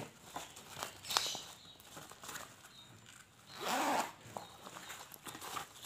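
A bag zipper being pulled, with small clicks and rustling as the sling bag is handled, and one brief louder noise about four seconds in.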